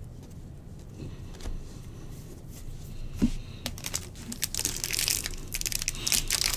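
Trading-card pack wrapper crinkling as it is gripped and torn open, starting about halfway through and growing denser. Before that, only faint clicks of cards being handled.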